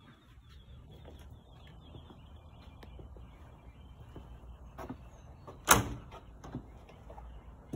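Sliding glass pane of a concession window worked along its track, with small knocks and one sharp bang against the frame a little before the end.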